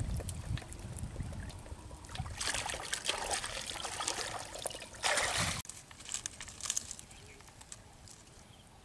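Water trickling and splashing in a basin of freshly caught small fish, with scattered small clicks. A louder splashy stretch in the middle stops abruptly just over halfway, leaving fainter ticks and dribbles.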